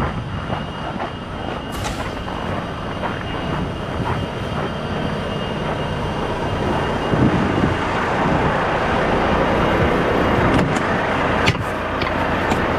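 Semi-truck's diesel engine idling under a broad rushing noise that grows gradually louder, with a few sharp clicks near the end.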